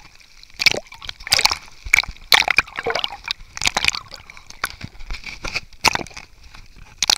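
Sea water sloshing and splashing over a camera held at the waterline, in irregular splashes a half second to a second apart.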